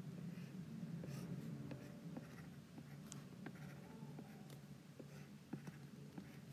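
Apple Pencil tip tapping and sliding on an iPad's glass screen as lines are drawn: a scatter of faint light ticks and short scratches over a low steady hum.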